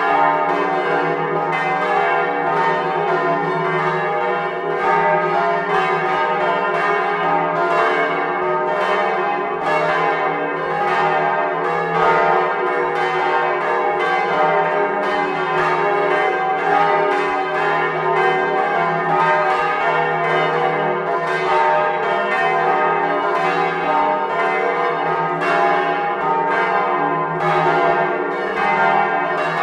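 Several large church bells, including a 16th-century E-flat bourdon, swinging and ringing together in a full peal. Their strikes overlap continuously over a steady deep hum.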